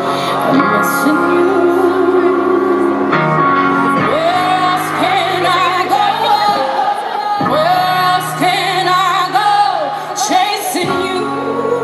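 Live concert sound of a female lead singer holding long, gliding notes over the band's steady chords, with scattered whoops from the crowd.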